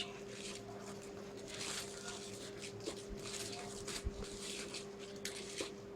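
Soft rustling and crinkling of bubble wrap and packaging being handled, with scattered faint ticks and crackles.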